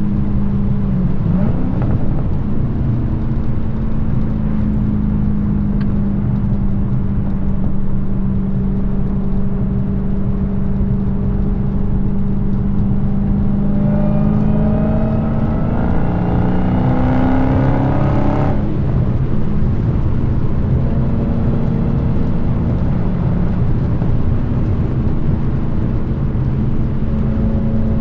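Dodge Challenger SRT Hellcat's supercharged Hemi V8 exhaust at a steady cruise, holding one pitch. A little past halfway the engine revs up for about five seconds, its pitch rising, then drops off suddenly and settles back into steady cruising.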